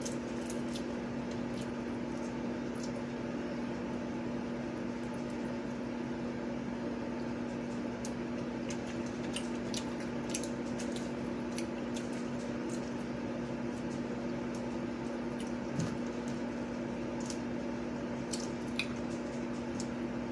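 Electric fan running with a steady hum, under frequent small clicks and mouth sounds of eating fried seafood with the fingers.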